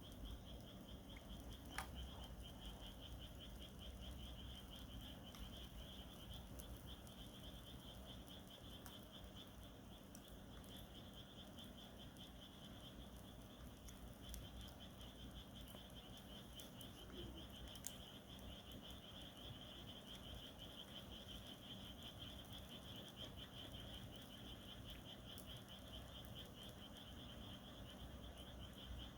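Campfire burning faintly, with two sharp crackling pops, about two seconds in and again around eighteen seconds, over a steady high trill of insects.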